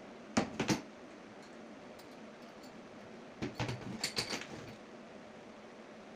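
Metal C-clamps and plywood pieces handled and set down on a wooden workbench: a quick cluster of knocks and clatters about half a second in, then another run of knocks and clinks a little after three seconds.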